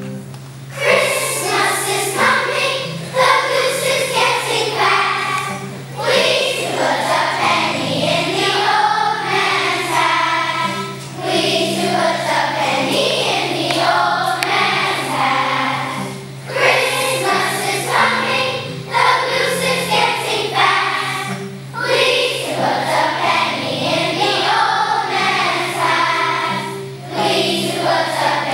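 A children's choir of third-graders singing together, in phrases with a brief breath about every five seconds.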